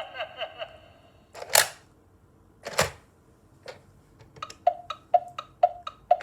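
Clicks from a Gemmy animated monster alarm clock, a Halloween novelty: the tail of its sound effect fades out, then two sharp clicks, then a run of about a dozen short clicky beeps that come faster toward the end.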